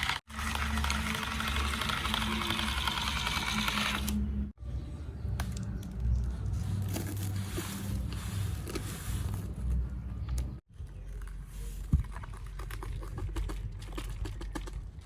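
Small electric motors and plastic gearboxes of toy remote-control construction vehicles whirring, with scraping and crunching, in several short takes that cut off abruptly.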